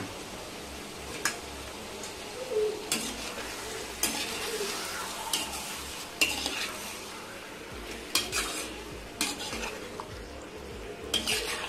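Steel ladle stirring chicken liver pieces in a nonstick kadai, with irregular clicks and scrapes of the ladle against the pan over a faint sizzle from the low flame.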